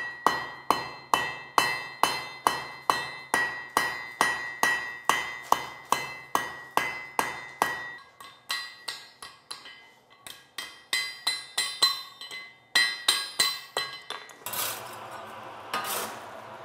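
Blacksmith's hand hammer striking hot iron on an anvil in a steady rhythm of about two ringing blows a second. After about eight seconds the blows turn lighter and irregular as a glowing rod is bent over the anvil's horn. A brief rushing noise comes near the end.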